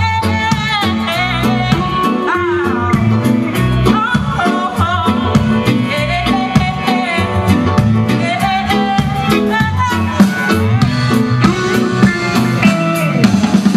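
Live reggae band playing: a steady bass line, drum kit, guitar and keyboards, with a woman singing lead over them.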